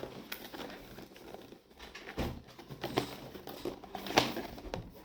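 Packaging of a speaker box being opened and handled: irregular rustling and crinkling with scattered small knocks and clicks, the sharpest about four seconds in.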